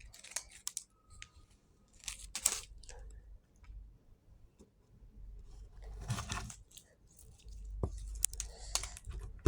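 Scattered short crunching and rustling handling noises, with a few clicks: hands working slime and its plastic packaging.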